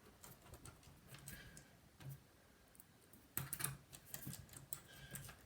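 Faint, scattered light clicks and taps of hands and a small tool working on a laptop's underside, with a busier cluster about three and a half seconds in.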